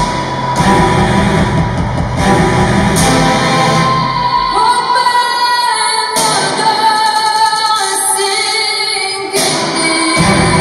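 Song with a woman singing, played loud as dance music. The bass drops out a little under halfway through, leaving the voice and higher instruments, then comes back just before the end.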